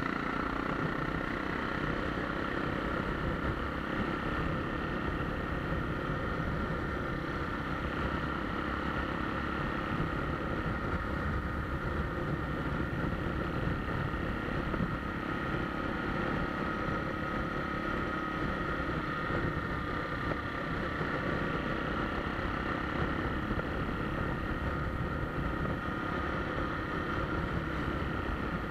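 Motorcycle engine running at a steady pace while riding, with wind rumbling on the microphone.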